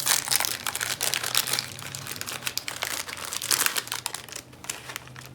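Crinkling of a snack candy packet being handled and opened by hand, dense crackles that die down near the end.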